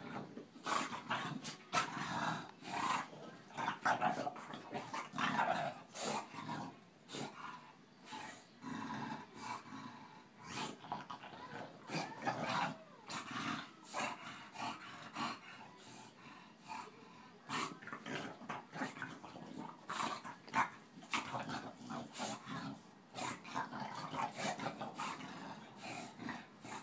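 A Boston terrier and an English bulldog play-fighting, growling in short, irregular bursts.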